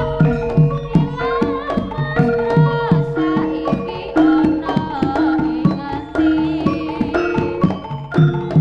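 Live Javanese jaranan ensemble music: repeated hand-drum strokes under a wavering, sustained melody line with held pitched tones.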